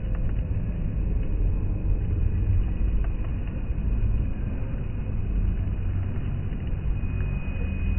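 Steady low rumble of background noise with no distinct events, and a faint thin tone near the end.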